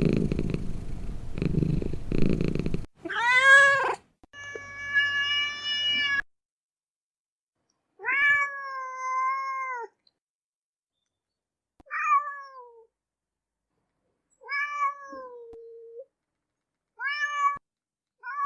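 Domestic cat purring in a low, rhythmic pulse for the first few seconds, then a series of six separate meows, a couple of them long and drawn out, the rest short, each followed by a gap of silence.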